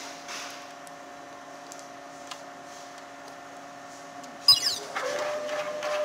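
Tajima multi-needle embroidery machine humming steadily, then a sharp click about four and a half seconds in as its motor spins up, running with a steady whine and rapid rhythmic ticking.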